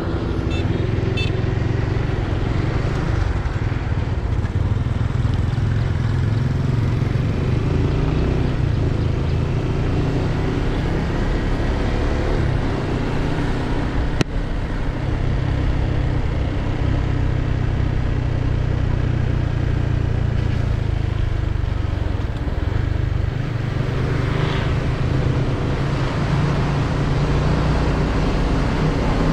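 Motorcycle engine running steadily under the rider while cruising along a road. A single sharp click comes about halfway through, and the engine note drops and then picks up again about two-thirds of the way in.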